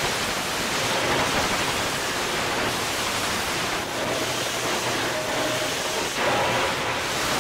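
Belt sander running, with a welded metal box pressed against the abrasive belt: a steady hiss of sanding as excess cured powder-coat filler is ground flat over filled dents. The noise dips briefly twice, about four and six seconds in.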